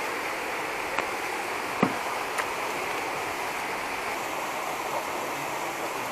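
Steady rush of a rocky stream's flowing water, with a few brief light knocks in the first few seconds.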